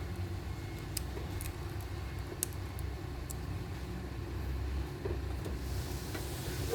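Steady low background rumble, with a few faint clicks from hands working on the panel's wiring connections.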